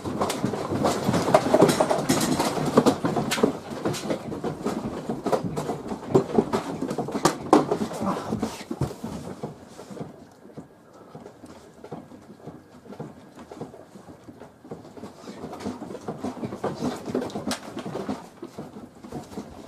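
A small room shaking in a strong earthquake: furniture, shelves and loose objects rattling and clattering densely, dying down about halfway through, then picking up again briefly near the end.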